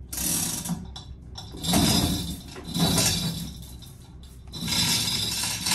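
Manual chain hoist worked by hand, its chain pulled in four strokes, links rattling through the hoist mechanism, while it takes the weight of a boat hull being turned.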